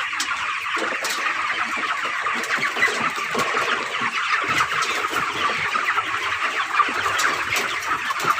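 A large flock of 25-day-old broiler chickens calling together: a steady, dense chatter of many short, high peeps and clucks overlapping.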